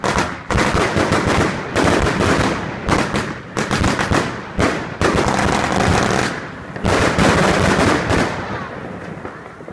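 Royal Fireworks 'Wonderful World' firework going off in a fast, dense run of overlapping bangs and crackles. It dies away about eight seconds in.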